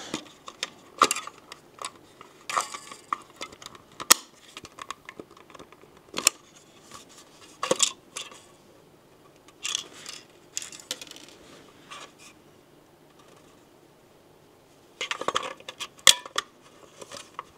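Small hard objects being handled: scattered clicks, taps and light clinks, in irregular clusters, with a pause of a couple of seconds near the end before a few more clicks.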